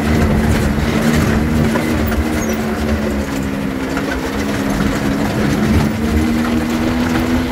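Off-road vehicle driving along a rough gravel track: the engine runs at a steady, slightly wavering pitch, with tyres rumbling and the vehicle rattling over the stones.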